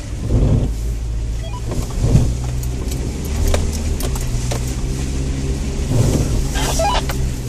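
Suzuki Grand Vitara's engine running steadily in four-wheel-drive low range, heard from inside the cabin, with a few thumps and scattered clicks and rattles as the car rolls over rough muddy ground.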